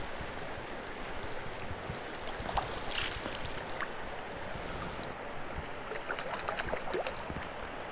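Shallow river water rushing steadily, with a hooked rainbow trout splashing and thrashing at the surface in several quick bursts near the end.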